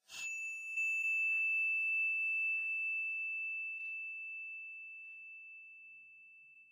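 A single bright bell-like ding, struck once at the start and ringing on one high tone that slowly dies away over several seconds, its upper overtones fading first. Three faint soft strokes come about a second apart under the ring.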